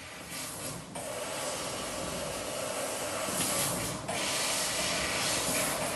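CNC thermal cutting machine cutting a mild steel sheet: a steady hiss from the cut and its gas jet. It dips briefly about four seconds in as the cut pauses, then resumes.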